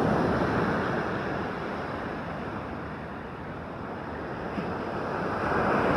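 Ocean surf washing up the beach, mixed with wind on the microphone: a steady rushing that swells, ebbs in the middle, and swells again near the end.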